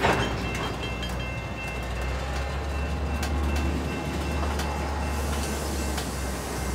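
Freight train of tank cars rolling slowly past: a steady low rumble with a few scattered clunks of wheels over rail joints, the loudest at the very start, and a faint high-pitched squeal.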